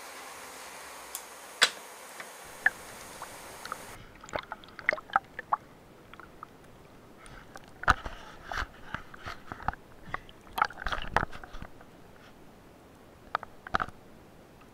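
A few faint ticks over a steady hiss, then, from about four seconds in, underwater sound: irregular sharp clicks and crackles, some in quick clusters.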